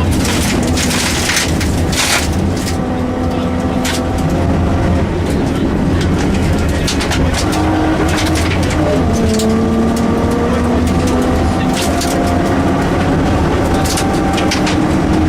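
Rally car engine at full effort on a stage, heard from inside the car. Its pitch holds and shifts with the gear changes, and drops clearly about halfway through as the driver lifts or changes gear. Sharp clatters from under the car run throughout.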